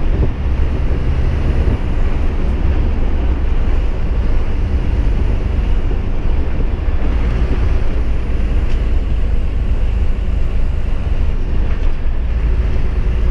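Truck running down a dirt road, heard from the cab: a steady low rumble of engine and road noise as it gathers speed on a descent.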